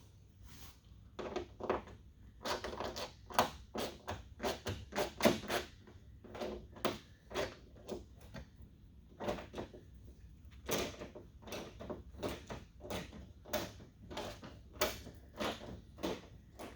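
Hand ratchet clicking in short, irregular strokes while it loosens a small Torx screw on a vehicle door.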